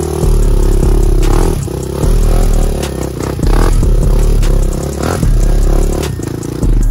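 Honda TRX400EX quad's single-cylinder four-stroke engine revving in repeated surges of about a second each as the throttle is opened and let off, with scattered clatter.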